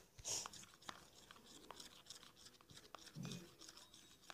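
Faint clicking and scraping of a plastic spoon stirring thick liquid soap mixed with salt in a plastic tub.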